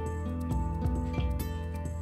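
Instrumental background music: held notes over a bass line.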